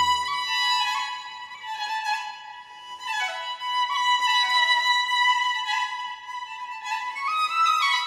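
Background music: a high, flowing solo melody of held notes and stepping runs, with no bass line under it.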